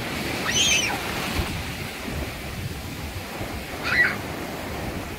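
Ocean surf breaking and washing around a wader, with wind on the microphone. Two short high-pitched cries cut through, about half a second in and about four seconds in, the second louder.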